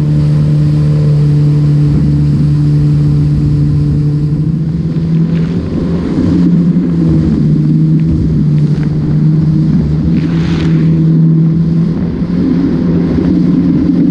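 Yamaha FX Cruiser HO WaveRunner's four-stroke engine and jet pump running steadily at cruising speed, the pitch rising and falling slightly twice. There are a few brief splashes of water around the middle.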